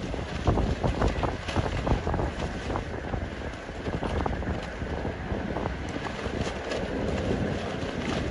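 Wind buffeting the microphone over a steady low rumble, with irregular pops and crackles throughout.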